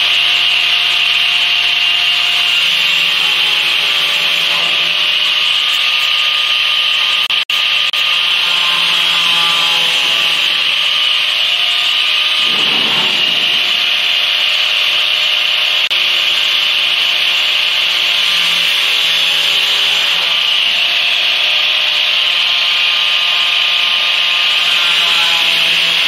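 Angle grinder cutting through sheet-metal ductwork: a loud, steady, high-pitched grinding screech over the motor's whine. The whine dips in pitch for a moment about halfway through as the disc bites into the metal.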